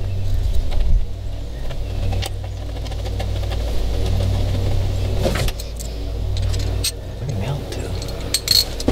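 A steady low machine hum, with light clicks and rustling as control cables and wires are handled and pushed into an outboard's cowling.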